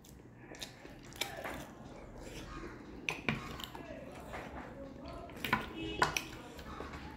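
Close-up mouth sounds of someone eating mutton curry and rice by hand: chewing and wet lip smacks, with several sharp clicks, the loudest a little past the middle.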